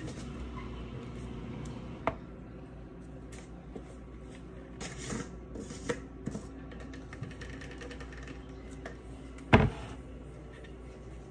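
Plastic bouillon jar handled and its screw cap twisted off: scattered light clicks and taps, then one louder sharp knock near the end.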